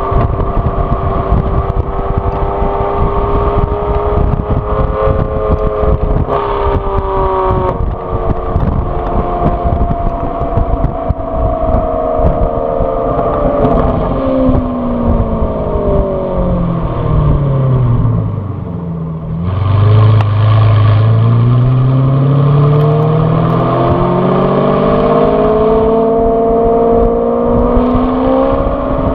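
The exhaust of a 2014 Aston Martin V12 Vantage S's 5.9-litre V12, tuned with VelocityAP's Power Pack, heard from the back of the moving car. The revs hold steady at first, then fall away for several seconds as the car slows. About two-thirds of the way through the engine comes back on hard, louder, with the revs climbing steadily.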